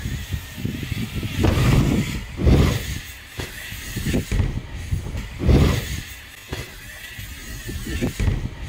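BMX bike riding a ramp park: tyres rumbling over the ramps in several loud surges as it rolls through, launches a jump and lands.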